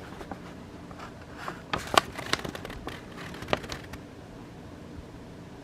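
Light handling noises of a paint-by-numbers kit being looked over by hand: a few soft clicks and rustles in the middle, then quieter.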